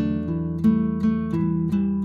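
Background music: acoustic guitar with plucked and strummed notes in a steady rhythm.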